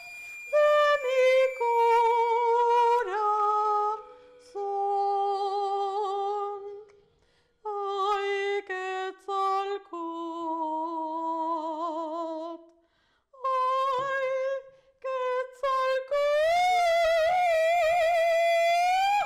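A woman singing an operatic melody unaccompanied, in held notes with vibrato broken by short pauses, ending on a high note with a wide vibrato.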